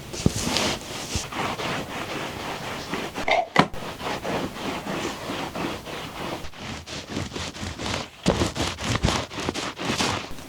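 Rustling and scraping of household things being handled, with a sharp knock about three and a half seconds in.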